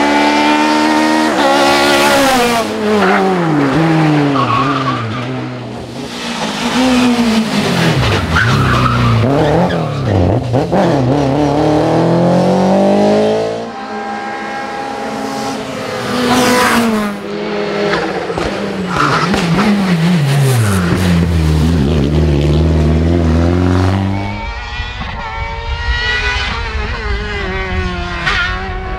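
Racing car engines at full throttle, several cars in turn: the revs climb steeply, drop sharply at each gear change and fall away when lifting for bends, then climb again.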